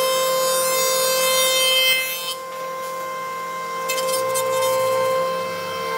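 An electric power tool's motor running with a steady, high whine. For about the first two seconds a rasping, hissy cutting or sanding noise rides on top, then mostly stops while the motor keeps running.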